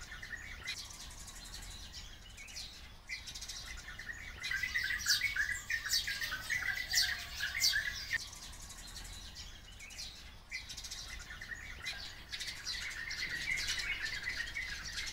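Oriental white-eyes and sparrows chirping and twittering together as a flock, a constant jumble of quick high notes. It grows busiest and loudest from about four to eight seconds in, and picks up again near the end.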